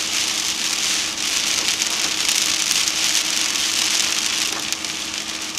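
Moderate rain on a moving car: a dense, steady hiss of rain and wet road with fine drop ticks, over a faint steady hum from the vehicle. It eases slightly near the end.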